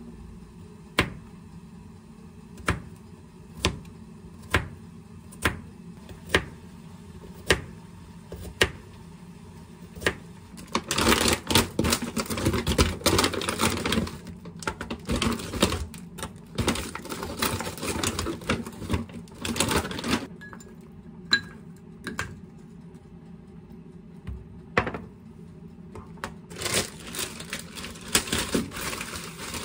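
Chef's knife cutting garlic cloves on a plastic cutting board: single knocks of the blade on the board about once a second at first, then a long stretch of rapid slicing clicks. Near the end, a plastic bag crinkles.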